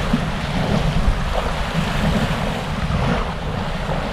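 Steady wind noise on the microphone, with waves washing in shallow sea water.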